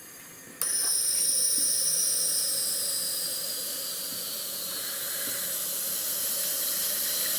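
Fuel injectors on an injector test-and-cleaning stand spraying test fluid at 2 atmospheres: a steady hiss with a thin high whine, starting abruptly about half a second in.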